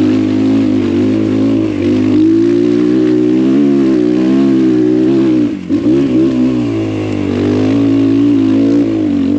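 X Pro Templar 250's air-cooled single-cylinder four-stroke engine running under load on a dirt trail, its pitch wavering with the throttle. About halfway through the note drops away briefly and comes back as the rider downshifts to first gear.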